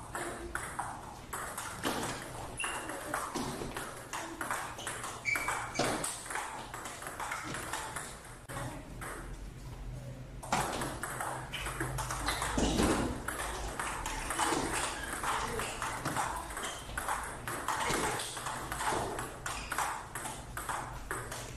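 Table tennis rally: the ball clicks sharply off the paddles and the table several times a second, in quick, uneven succession, with a short break about halfway through before the hitting resumes.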